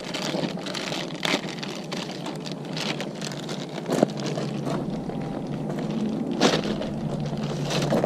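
Handling noise as a new clutch cable is fed along a dirt bike's frame: irregular small clicks, rustles and taps, with a few sharper knocks, over a low steady hum.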